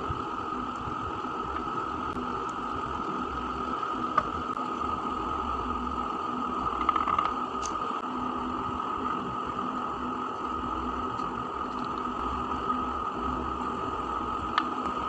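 Steady mechanical hum with a constant whine, under a few faint clicks and light taps.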